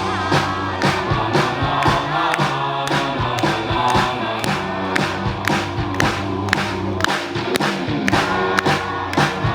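Live rock band playing an instrumental intro, with drum hits about twice a second over sustained bass and guitar, and crowd noise underneath.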